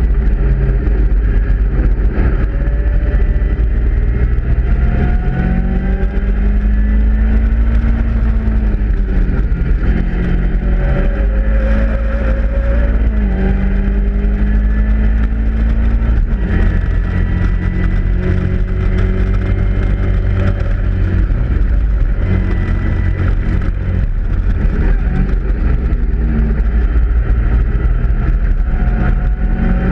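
Caterham Roadsport race car's engine at racing speed, heard from the open cockpit: its note climbs through the revs and drops back several times with gear changes and lifts, over heavy wind rumble on the microphone.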